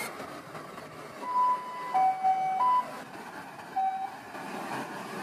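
Electronic beeps switching between two pitches: a high beep, two lower beeps, another high beep, then one short low beep about a second later. Under them, the steady hum of the crane truck running.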